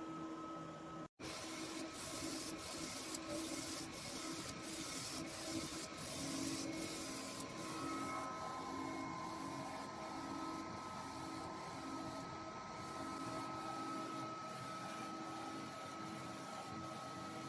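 UV DTF inkjet printer printing: the print carriage shuttles steadily with a motor whine and a regular ticking about twice a second. The sound cuts out for an instant about a second in.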